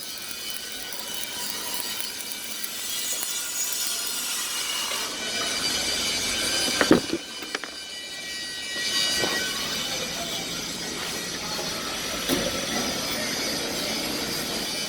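Stick welding arc burning a 1/8-inch 7018 electrode: a steady crackling hiss, broken about halfway through by a few sharp clicks and a brief dip.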